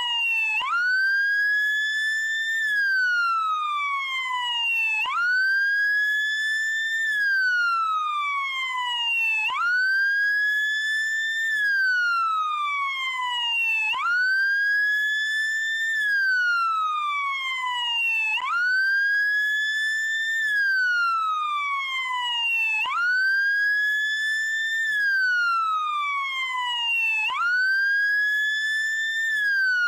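Police car siren in wail mode: a loud tone that sweeps up quickly, climbs a little further, then glides slowly down again, repeating about every four and a half seconds.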